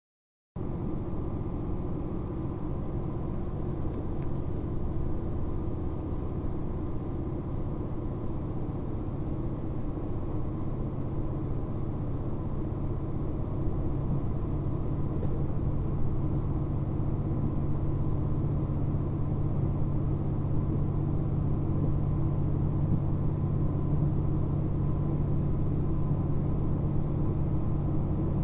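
KiHa 261 series diesel multiple unit heard from inside the carriage while running: a steady low drone of the diesel engines mixed with rail running noise, growing louder about halfway through.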